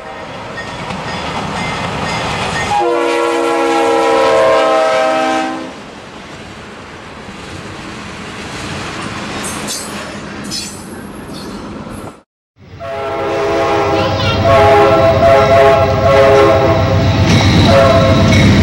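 Diesel locomotive's multi-chime air horn blowing one long blast about three seconds in, over the rising rumble of an approaching train. After a sudden brief dropout, the horn blows again in several blasts over the rumble and clatter of a passing train.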